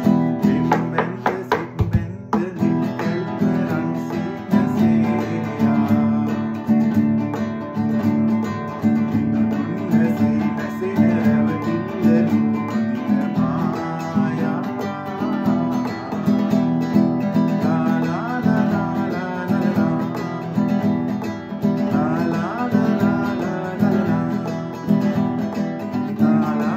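Nylon-string classical guitar strummed in a simple rhythm on basic chords, while a man sings a Sinhala song over it.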